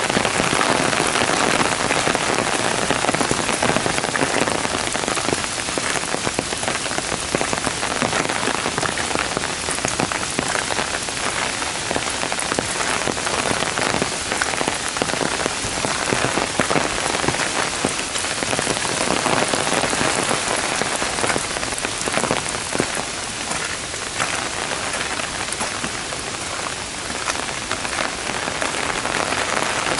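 Heavy downpour: dense, steady rain falling on a gravel path and the surrounding trees and undergrowth.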